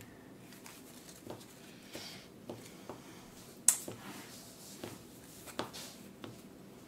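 Quiet handling of game cards at a table: scattered soft taps and clicks as cards are held, shuffled in the hand and set down, with one sharper click about halfway through.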